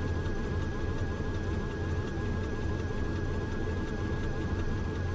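Beechcraft King Air's twin Pratt & Whitney PT6A turboprop engines running at low power while taxiing, heard inside the cockpit as a steady low drone with a thin steady high tone above it.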